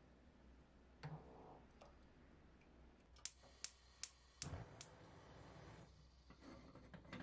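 Near silence broken by a few sharp clicks at the stove: one about a second in, then four in quick succession over about a second and a half, with a soft thump among them, around a saucepan of caramel mixture on a gas hob.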